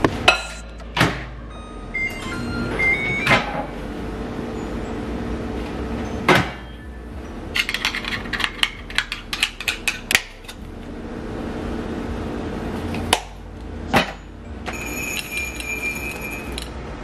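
Kitchen microwave in use: a few short keypad beeps, the door knocking shut and open, and the oven humming steadily while it heats. A spoon then clicks and scrapes in a small ceramic ramekin, and near the end there is a steady beep about two seconds long.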